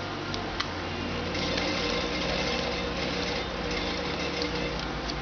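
Electric sewing machine running steadily, stitching through ripstop nylon, with a couple of light clicks near the start.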